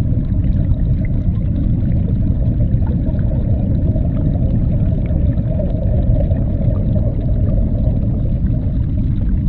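A steady, deep, rumbling drone with an underwater feel, unchanging and with no distinct notes or beats.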